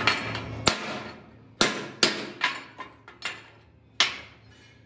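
Hammer blows on steel in a metalworking shop: about six sharp strikes at irregular intervals, each ringing briefly.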